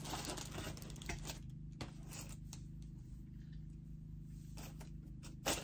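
Quiet room with a steady low hum and a few faint clicks and rustles of small items being handled, with one sharper click near the end.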